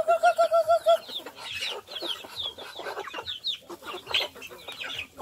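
A flock of chickens clucking and chirping as they crowd in to peck at scattered feed. A quick run of pulsed calls in the first second, then short, high, falling chirps.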